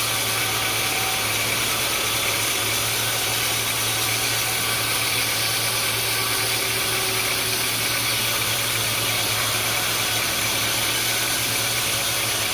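Sawmill machinery running steadily: a constant low hum with an even hiss over it, with no cutting strokes or impacts.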